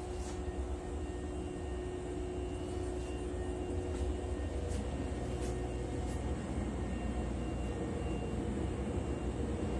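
Steady low rumble of a train car heard from inside, with a faint hum that fades about six seconds in and a few light clicks.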